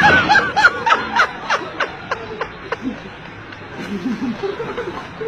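A person laughing: a quick run of high 'he-he-he' bursts that drop in pitch and slow down, trailing off about three seconds in, then a softer, lower chuckle near four seconds.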